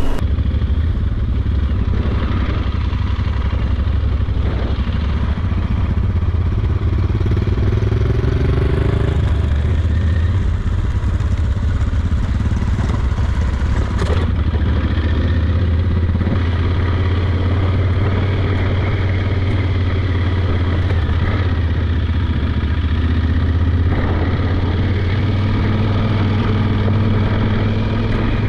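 Yamaha Super Ténéré parallel-twin motorcycle engine running steadily under way, with a brief change in engine note about a third of the way in. Two sharp knocks stand out, one about halfway through and one near the end.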